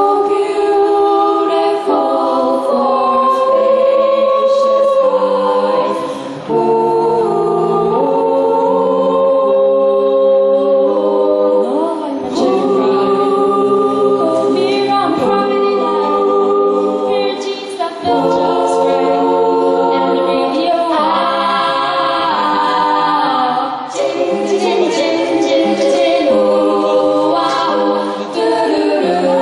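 An a cappella vocal group of mixed voices singing close harmonies, several voices holding chords that shift every second or two.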